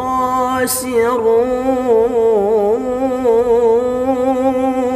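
A young man reciting the Quran solo in the melodic tilawah style. He draws out a long vowel in ornamented, wavering melismas, with a brief breathy hiss about a second in.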